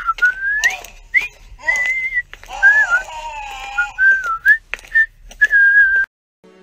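A person whistling a casual tune in short, gliding phrases, with a few sharp clicks between them. The whistling cuts off suddenly about six seconds in.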